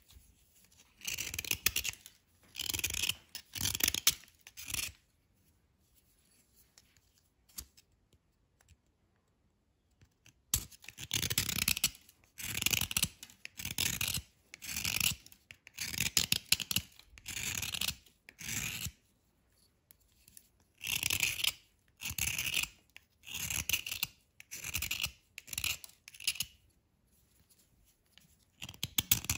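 Knife blade scraping a dry, crumbly white bar, shaving off flakes: a run of short rasping strokes about a second apart, with a pause of about five seconds after the first few strokes.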